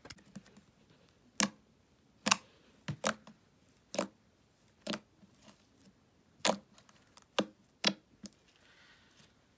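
Homemade slime being squished and kneaded, giving about nine sharp pops and clicks at uneven intervals.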